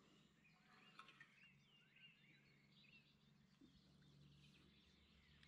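Near silence with faint birdsong: scattered short chirps and whistles over a faint steady low hum.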